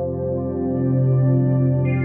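A synthesizer pad preset playing a sustained chord with slow swells, a deep low tone under it, and brighter upper tones coming in near the end.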